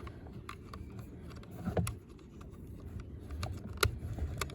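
Scattered light clicks and taps of hard plastic toy parts being handled and fitted together, with a couple of sharper clicks and a low rumble of handling.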